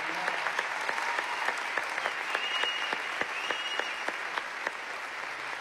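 Studio audience applauding: many hands clapping in a steady, dense patter.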